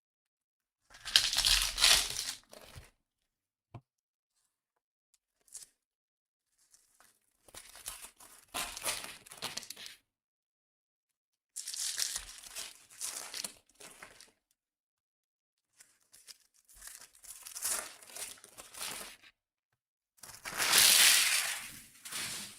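Plastic wrapping being torn and crumpled by hand in about five separate crackly bursts, each a second or two long, with silence between them.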